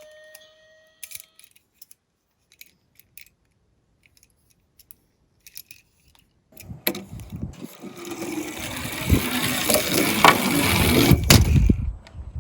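A toy siren's rising wail dies away in the first second, followed by a few light clicks. From about halfway through, a toy minicar rolls down a slope with a dense rattling clatter that grows louder and then cuts off just before the end.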